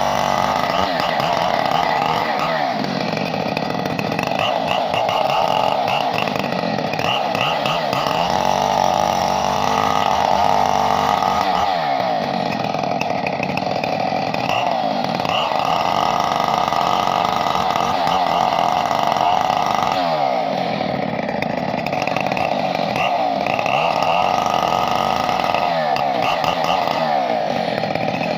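A two-stroke chainsaw running hard without a break, its engine pitch dipping and recovering several times.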